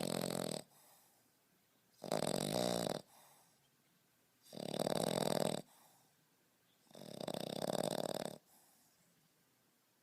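French Bulldog puppy snoring in its sleep, one loud snore roughly every two and a half seconds, each lasting about a second, with a faint softer sound after each. The short-nosed breed's cramped airway makes this kind of heavy snoring common.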